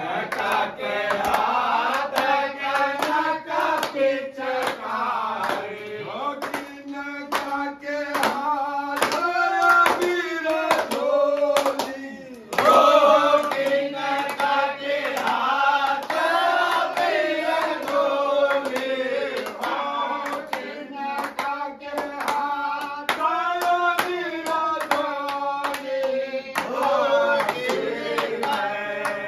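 A group of men singing together, with steady hand clapping keeping the beat; the singing breaks off briefly about twelve seconds in, then goes on.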